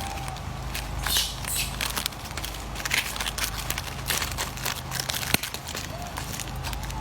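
Irregular crinkling and crackling rustles, as of monkeys rummaging through bananas and their wrapping, over a steady low hum.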